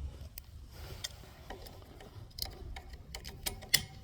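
Irregular light clicks and taps from handling the rifle and its gear, with a sharper click near the end.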